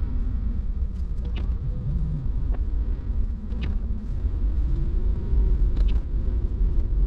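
Toyota HiAce van driving on a wet, snowy road: a steady low rumble of engine and tyres, the engine note rising and falling a little, with a few short ticks.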